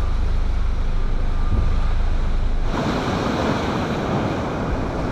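Rough storm surf crashing and washing on the shore, with strong wind buffeting the microphone. About two and a half seconds in, the low wind rumble drops away and the hiss of the breaking waves takes over.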